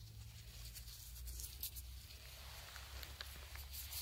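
Faint rustling with scattered light clicks, more of them in the second half, as gloved hands pick mushrooms from moss, over a low steady rumble of handling noise.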